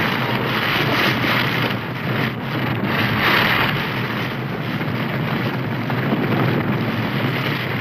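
Steady rushing noise with no music or speech, dipping slightly about two seconds in.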